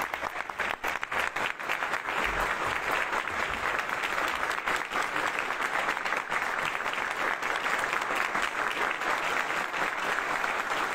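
A large audience applauding, a dense, steady clapping that goes on without a break.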